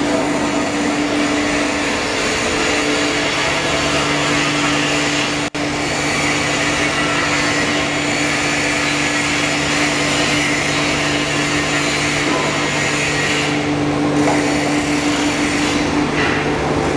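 Horizontal foam-cutting machine running steadily while it slices memory foam into thin sheets: a steady motor hum and hiss, with a lower hum joining about three and a half seconds in.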